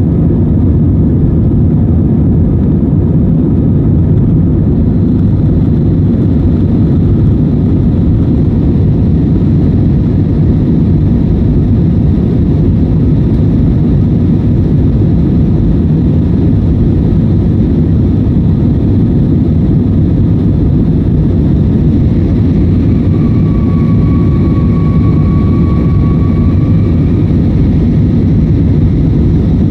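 Steady low roar of a climbing Airbus A320-family airliner's jet engines and rushing air, heard inside the passenger cabin. A faint steady whine comes in for a few seconds about three-quarters of the way through.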